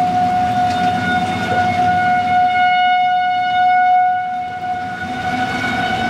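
Outdoor tornado warning siren sounding a steady wail, one held tone with overtones. It swells slightly through the middle and eases off about four and a half seconds in.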